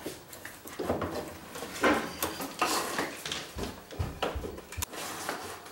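Yellow 12-2 nonmetallic (Romex-type) electrical cable being pulled through the wooden wall studs: irregular rustling and scraping of the plastic sheathing against the wood, with scattered light knocks.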